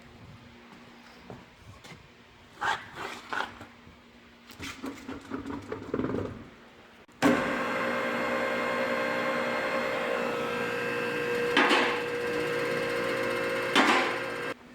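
A few knocks and clicks, then a vehicle lift's electric hydraulic pump motor starts abruptly about halfway through and runs at a steady hum, raising the car, with two sharp clacks while it runs; it cuts off just before the end.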